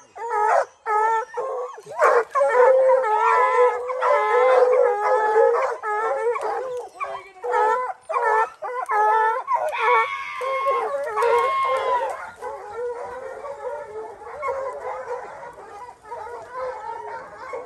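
A pack of hunting dogs baying at a mountain lion they have treed: overlapping howls and barks from several dogs at once, loudest for the first two-thirds and a little quieter near the end.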